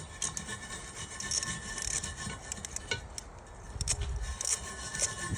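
Scraping and rubbing with scattered sharp clicks of a tool working on metal as the oil drain plug of a pressure washer is unscrewed.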